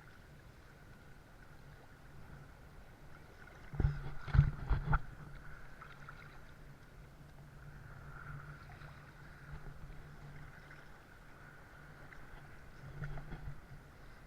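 Water sloshing around an action camera held in the sea, with a cluster of loud knocks against the camera about four seconds in and a few softer ones near the end.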